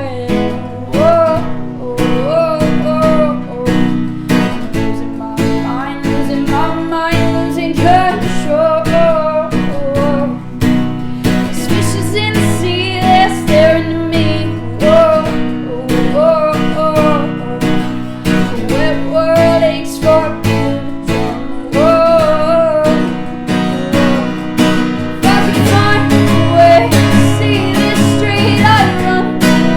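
Strummed acoustic guitar with a voice singing a melody over it, a continuous song.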